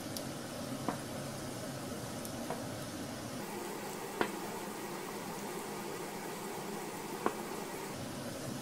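Meat patties sizzling steadily in a frying pan, with a few light knocks of a spoon against a saucepan as mashed potato is stirred, about four taps spread through.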